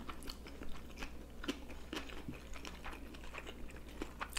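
Close-miked chewing of sushi rolls: soft, irregular wet mouth clicks and smacks, several a second.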